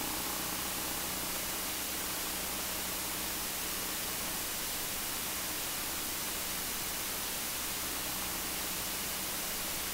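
Steady hiss from a light aircraft's cockpit intercom feed, recorded with one volume set too high so that it sounds like a jet engine, with a faint steady hum underneath.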